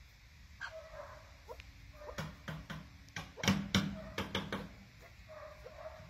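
Chukar partridges calling: soft, short calls every second or so, and in the middle a quick run of louder, sharper chuck notes.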